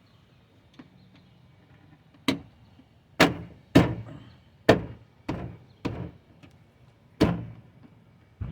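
Plastic trim panel at the back of a Nissan Rogue being knocked back into its clips: about seven sharp knocks, irregularly spaced over several seconds.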